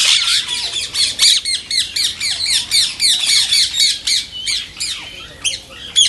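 Indian ringneck parrot chattering: a fast run of short, high-pitched squawks and chirps, several a second, growing sparser near the end.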